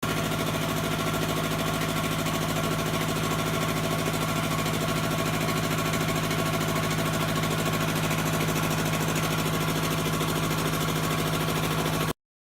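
Iwata air compressor running: a steady motor-and-pump hum with a fast, even knocking rattle, which stops abruptly about twelve seconds in.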